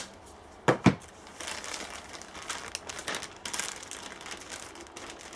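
Two sharp knocks about a second in, then a clear plastic bag crinkling and rustling as it is handled.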